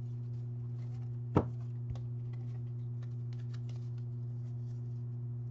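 Stack of Magic: The Gathering trading cards handled and shuffled between the hands, with faint card ticks and slides and one sharp snap about a second and a half in. A steady low electrical hum runs underneath.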